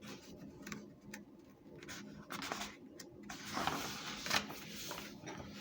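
Quiet room tone with a faint steady hum, broken by a few soft clicks and rustles.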